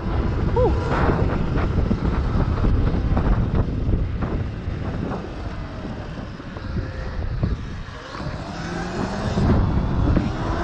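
Wind rushing over the microphone of a Sur-Ron electric dirt bike riding at speed, with tyre and road noise underneath. The level dips for a couple of seconds midway, then picks up again as a faint rising motor whine comes in near the end.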